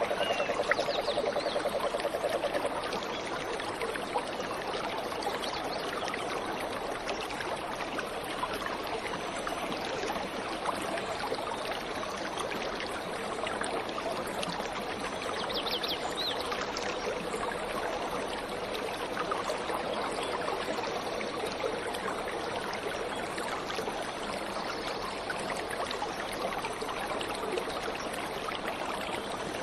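Waterfall water rushing steadily. A few faint, high bird chirps come through about a second in and again about halfway through.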